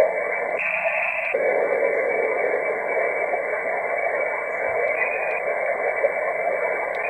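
Band noise hissing steadily from an mcHF HF SDR transceiver's speaker tuned to 20-metre sideband, with no readable station, the sign of very poor band conditions. About a second in, the hiss briefly thins at the bottom and brightens at the top as the receive filter is changed.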